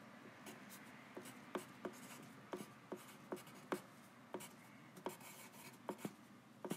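Faint handwriting: light, irregular taps of a writing tip, about one or two a second, with faint scratching between them.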